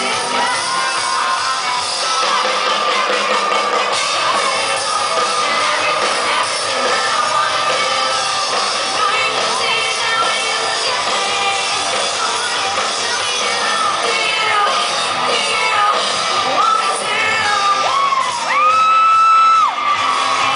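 Live pop-rock band with electric guitars, drums and a female lead singer, heard thin and with little bass amid a crowd of fans. Near the end a loud scream rises and is held for about a second over the music.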